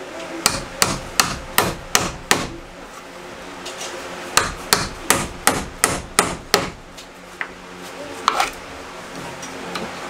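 Hammer nailing a blue plastic electrical box onto a wooden wall stud. There are two quick runs of about six or seven sharp blows with a short pause between them, then a single blow near the end.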